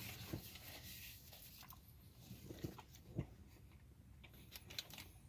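Faint chewing of a mouthful of burger, with scattered soft mouth clicks.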